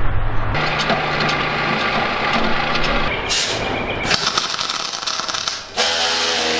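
MIG welding on a steel boat hull: the arc crackles and sizzles, breaking off and starting again several times, over a steady machine hum.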